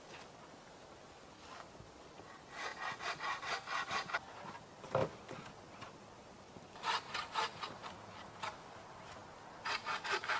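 Three bursts of rapid rhythmic scraping strokes, several a second, with a single dull knock between the first two.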